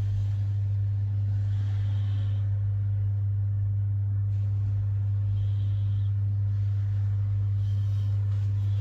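Steady low hum at one constant pitch, with no other clear sound over it.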